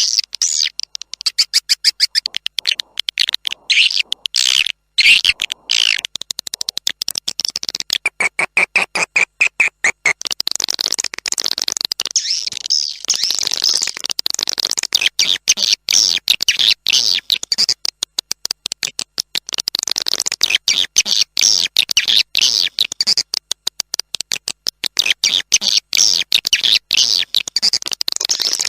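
Swiftlet lure call recording of the kind played to attract swiftlets into a swiftlet house: a dense, unbroken stream of fast, high twittering chirps and rapid clicking, with a lower buzzing trill about eight seconds in.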